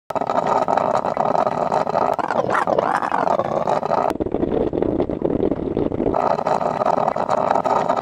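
Drip coffee maker brewing noise, a steady noisy hiss, run through audio effects. The processing changes abruptly every two seconds or so, and one version has a wobbling, warbling pitch.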